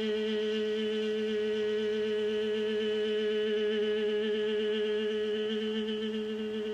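Meditative background music: one unbroken drone at a steady pitch, with shimmering, chant-like overtones.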